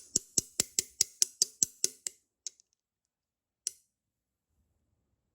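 A quick, even run of about ten sharp clicks or taps, roughly five a second, then two more single clicks spaced apart before it falls quiet.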